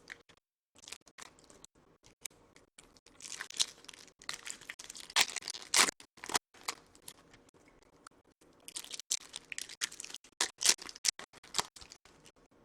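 Foil trading-card pack wrappers being torn open and crinkled by hand, in irregular crackly bursts with sharp snaps. The loudest bursts come about halfway through and again a couple of seconds before the end.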